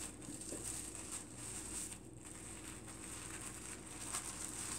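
Tissue paper rustling and crinkling faintly as it is rolled up by hand.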